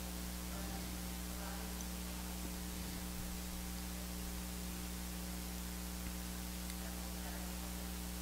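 Steady low electrical mains hum with a faint hiss underneath, with no change through the stretch.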